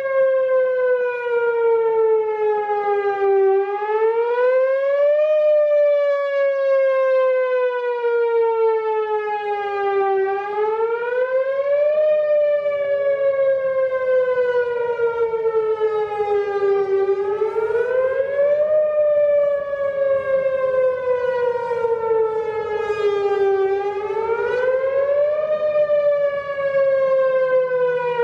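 Whelen WPS-4004 electronic outdoor warning siren sounding its whoop signal. The tone climbs quickly, then slides slowly back down, over and over about every six and a half seconds, with four rises in all.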